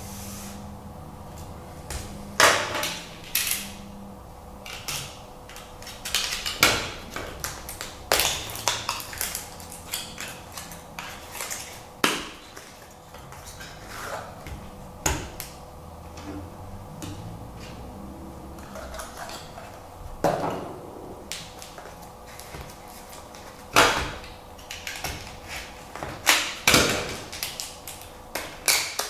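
Hands unpacking kit parts: cardboard box flaps pulled open and a plastic case taken out and set down, giving irregular sharp clicks, knocks and rustles.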